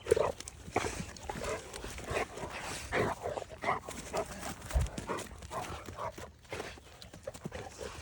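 Dogs playing rough: short, scattered growls and grunts with scuffling.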